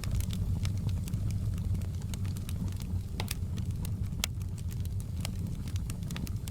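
Wood fire crackling, with irregular sharp pops and snaps several times a second over a steady low rumble of the flames.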